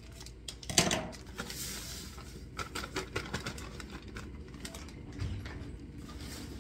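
Scissors cutting open a plastic bag, then the plastic crinkling and rustling as a dry powder is shaken out of it into a stainless steel mixing bowl, with a sharp click about a second in and a run of small clicks and taps around the middle.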